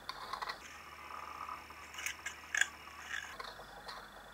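A spoon scraping and tapping crushed garlic out of an earthenware mortar bowl into a steel pot of flour: a few light clicks and scrapes, the sharpest about two seconds in.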